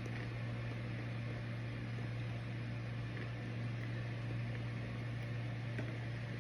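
Microwave oven running, a steady low hum with a few faint ticks.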